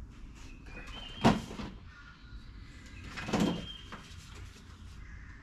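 Handling noise from the parts of a shotshell reloading press's auto-feed primer system: a sharp click with a short rustle after it about a second in, then a longer, softer handling noise about three seconds in.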